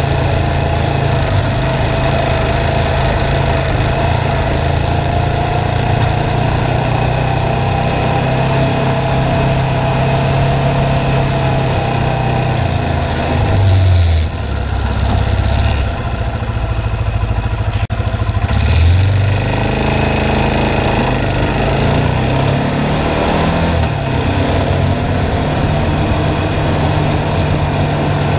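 ATV engine running steadily under way. About halfway through it eases off for a few seconds, then picks up again.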